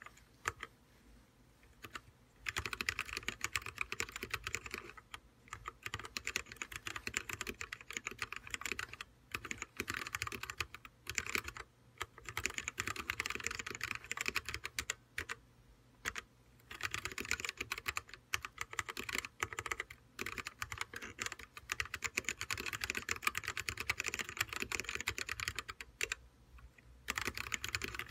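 Typing on an OLKB Planck mechanical keyboard with Kailh yellow switches: rapid runs of key clicks, starting about two seconds in and broken by several short pauses.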